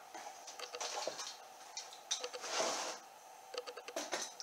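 Small clicks, knocks and rattles as a vintage 35 mm filmstrip projector and its cords are handled and lifted out of a fitted carrying case. A longer rustling scrape comes a little after halfway.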